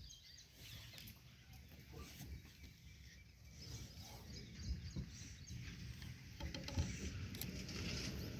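Faint bird chirps over a low, uneven rumble that grows louder about halfway through.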